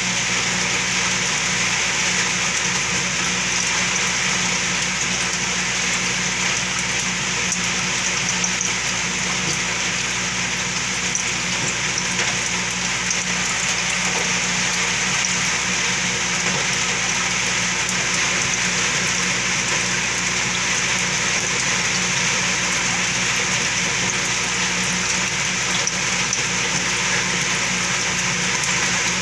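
Steady aquarium running noise: a pump's low hum under a continuous hiss of water splashing and bubbling at the surface.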